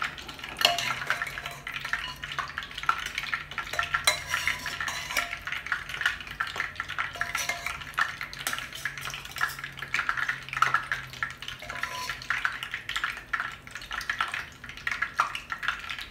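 A metal spoon scraping and clinking against a pressure cooker and a stainless-steel plate as cooked mutton chops are lifted out piece by piece, in irregular short knocks and scrapes.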